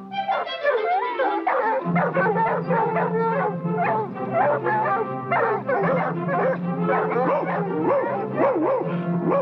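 Cartoon hunting dogs barking and yelping over and over in quick succession, over an orchestral cartoon score. The score's low held notes come in about two seconds in.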